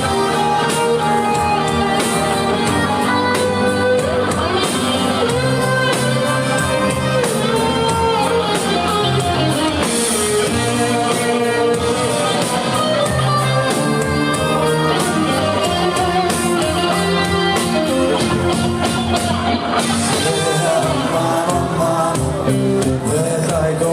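A live band playing a song, with singing over guitar and drums, in a large room.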